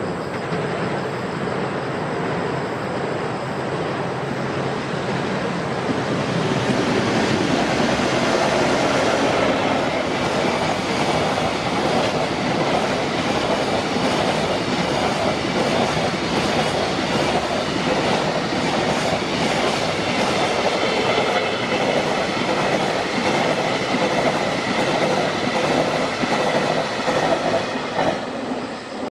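A JR Freight EF210 electric locomotive hauling a long container freight train past, its wheels clattering rhythmically over the rail joints. The noise builds over the first several seconds, holds steady as the wagons roll by, and cuts off abruptly at the end.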